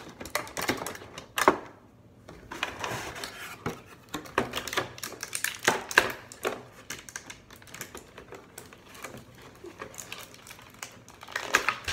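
Stiff clear plastic toy packaging crackling and clicking as hands handle it and pull it apart, in irregular sharp snaps.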